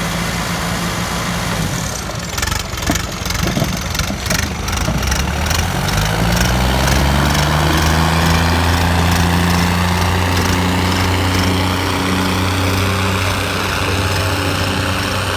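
Diesel tractor engines running, then revving up about six seconds in and held at high revs. A run of sharp knocks sounds between about two and five seconds in.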